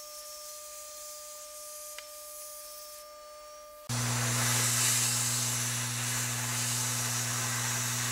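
Faint steady tones, then about four seconds in the loud hiss of a hot air rework gun's blower cuts in abruptly over a steady low hum. It is heating a glued-down surface-mount chip to melt its solder.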